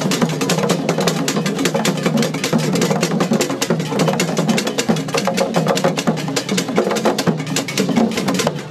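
Akom ritual drumming: tall Akan hand drums such as apentema struck with bare hands in a fast, dense, continuous rhythm.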